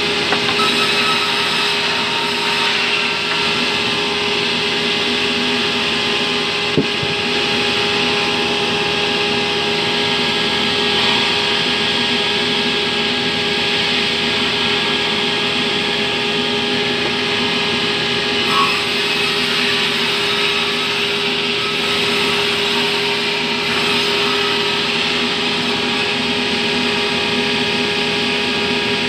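Sawmill band saw running steadily as it cuts lengthwise through a terap log, a fibrous timber. A single sharp knock comes about seven seconds in.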